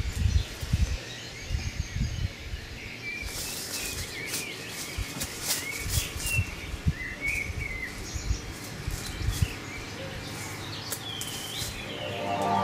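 Small birds chirping and twittering outdoors. Scattered rustles and soft low thumps come from a person moving about on dry, leaf-covered ground.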